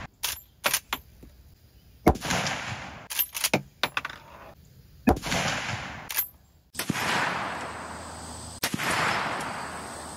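Several shots from a lever-action .30-30 Winchester rifle, about two to three seconds apart, each with a long echoing tail. Between the shots come quick sharp metallic clicks of the lever being worked to chamber the next round.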